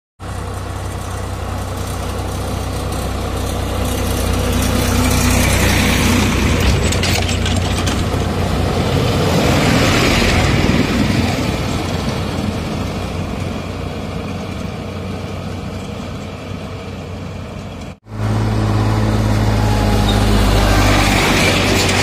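Diesel engines of a Sonalika tractor and a JCB 3DX backhoe loader driving past, getting louder as they come close. About eighteen seconds in it cuts off suddenly, then the backhoe's engine is heard running.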